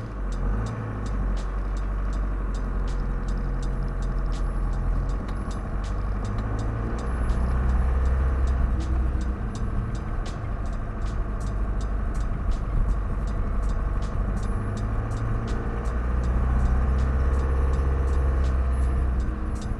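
Scudo camper van on the move: engine and road rumble, swelling louder twice as it pulls harder, with many faint sharp clicks throughout.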